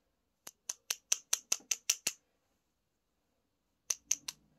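A fingertip flicking a plastic syringe barrel to drive air bubbles up toward the needle while priming it. It makes a run of about nine sharp clicks at about five a second, then, after a pause, three more near the end.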